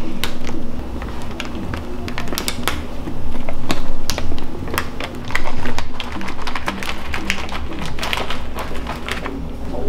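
Plastic bag of peanuts crinkling and crackling in many sharp, irregular clicks as fingers pick and pull at it, struggling to tear it open. Background music runs underneath.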